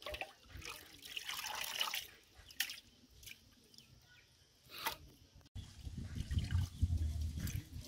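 Hands swishing and squeezing pieces of tripe in a metal basin of water, with splashes, and water dripping back into the basin as pieces are lifted out.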